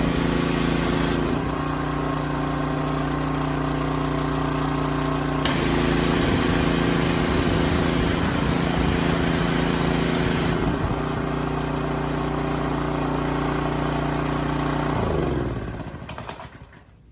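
The Craftsman 3000 psi pressure washer's small single-cylinder engine, freshly rebuilt, runs steadily under load. A hiss over it drops out and comes back a couple of times. Near the end the engine is shut off and winds down to a stop.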